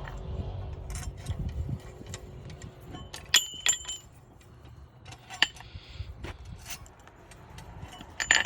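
Metal-on-metal clinks and clicks as a wrench is fitted, turned and repositioned on a coil spring compressor. Scattered sharp clicks, with a pair of brief ringing metallic strikes about three and a half seconds in and another near the end.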